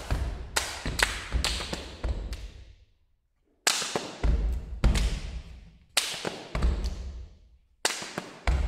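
Body percussion by two performers: sharp hand claps and slaps against the body, each ringing on in a reverberant hall. The strikes come in irregular clusters, with about half a second of silence around three seconds in.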